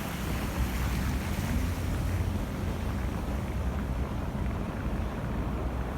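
Wind blowing against the microphone during a snowstorm: a steady low rumble with a hiss above it.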